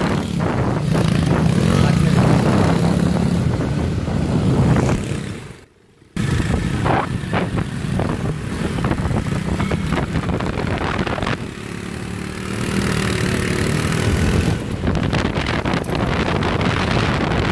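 Small motorcycle engines running at road speed while riding alongside each other. The sound drops out for a moment about six seconds in.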